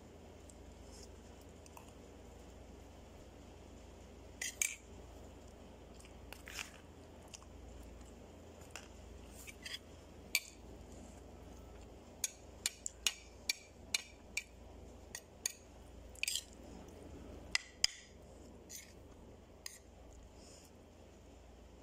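Metal spoon clicking and scraping against a ceramic plate while rice is eaten: scattered sharp clicks, coming thick and fast in the second half.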